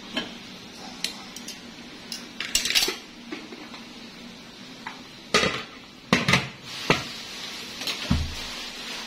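Metal tongs clinking against an aluminium steamer pot while a banana-leaf-wrapped cake is lifted out, then sharper clanks of the aluminium lid being set back on the steamer, loudest about five and a half to seven seconds in.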